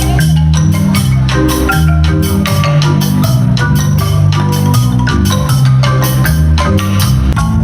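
Music with a steady beat, a bass line and a bright mallet-percussion melody like a marimba.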